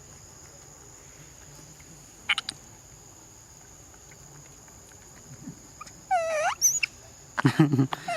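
Young monkey calling: a brief high chirp about two seconds in, then near the end a loud wavering cry that slides down and back up, a very high squeak, and a louder harsh cry.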